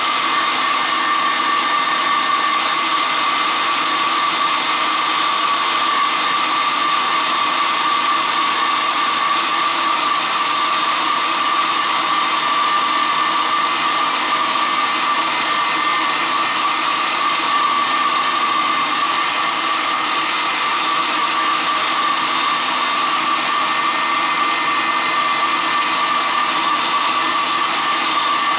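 Hand-held hair dryer running steadily, a constant rush of air with a steady whine over it, blowing on freshly sprayed paint to dry it.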